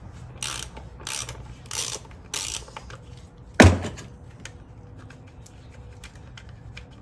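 Hand socket ratchet clicking in a run of small, fairly even ticks through the second half. Before it come several short scuffing noises and one loud knock about three and a half seconds in.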